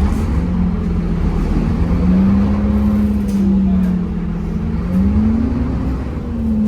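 Temsa Avenue LF 12 city bus under way, its DAF diesel engine and ZF automatic gearbox running over a low rumble, with a whine that rises and falls in pitch a few times.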